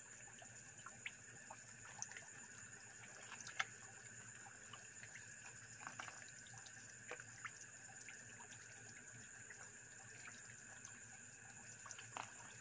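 Lele dumbo (African catfish) snapping at floating feed at the water surface: scattered small splashes and pops over a faint steady hiss, the sharpest about three and a half seconds in.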